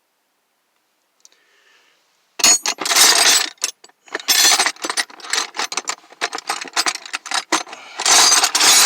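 Loose steel wrenches clattering and jangling against each other in a toolbox drawer as a hand rummages through them, in irregular clusters of sharp metallic clinks that start after about two seconds.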